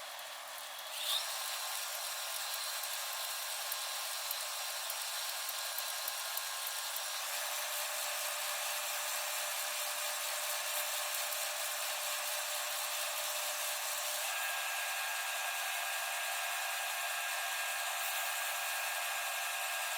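Wood lathe running steadily with a motor whine. The pitch shifts a few times, about a second in, near the middle and again later.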